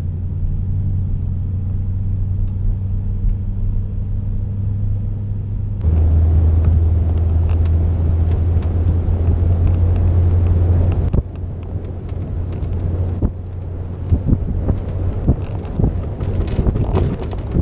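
Road noise of a truck driving on a paved road, a steady low rumble heard from inside the cab. About six seconds in, it cuts to a louder low rumble of the truck towing a boat on its trailer, heard from the boat. Near the end this turns rougher, with many small knocks and rattles.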